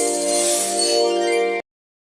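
Music with held, ringing tones and a bright shimmer, which cuts off abruptly about three quarters of the way through.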